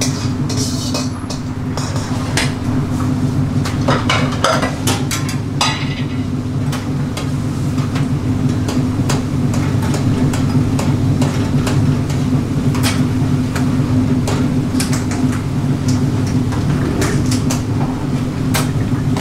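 Steady low drone of a busy restaurant kitchen, with sharp metal clicks and clinks of tongs against a tawa and pans, several in the first six seconds and now and then after.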